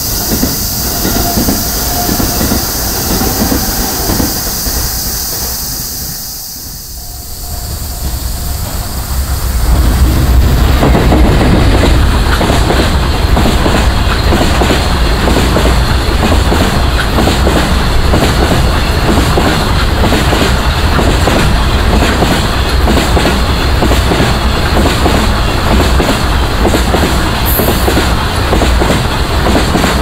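A long freight container train passing close by over a level crossing, loud from about a third of the way in: a deep rumble with a steady clickety-clack of wheels over the rail joints. Before it arrives, a quieter passing train and cicadas buzzing high and steady.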